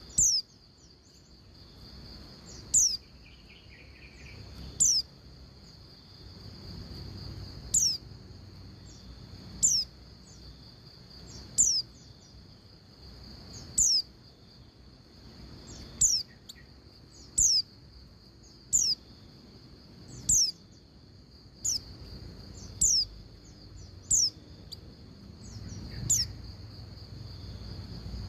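Female white-eye (pleci) giving short, sharp, high-pitched calls that fall steeply in pitch, repeated about every one and a half to two seconds; this is the female's call to a male. A steady high-pitched hum runs underneath.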